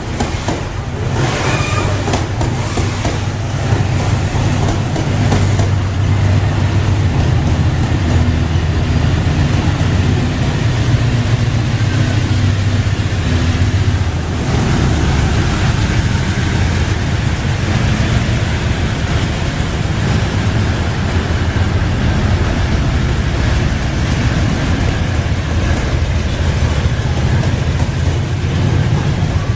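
Diesel-electric locomotive MRS #3849, running as a Locotrol distributed-power unit, its engine roaring loud under heavy throttle with a deep, steady drone.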